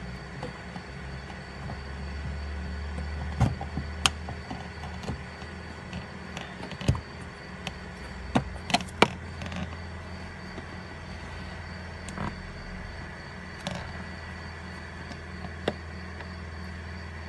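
A steady low hum with about ten sharp clicks and knocks scattered through it, the loudest a few seconds in and a cluster of three about halfway through.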